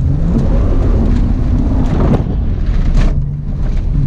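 Holden VS Commodore engine revving hard during a dirt drift, its pitch rising early on, with rough rumbling and wind buffeting the microphone. There are a couple of sharp knocks about two and three seconds in.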